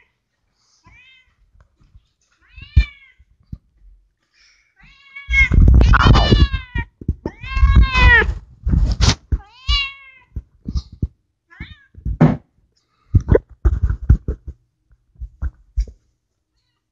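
Pet cat meowing over and over: a series of drawn-out meows that rise and fall in pitch, loudest in the middle. Near the end the calls give way to a few short knocks and thumps.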